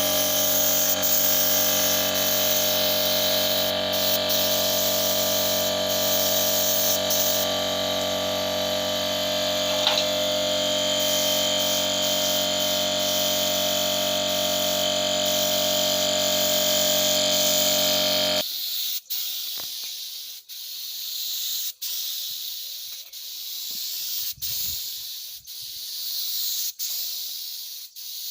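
Stick-welding arc hissing, at first over a steady hum made of many tones. The hum stops abruptly about eighteen seconds in, leaving the hiss alone, rising and falling with short breaks roughly every second or so.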